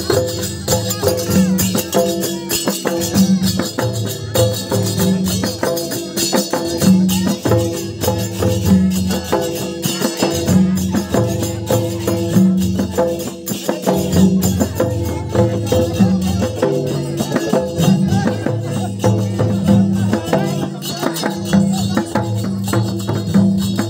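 Live folk drumming on a double-headed hand drum in a steady repeating rhythm, with bright jingling metal percussion over it.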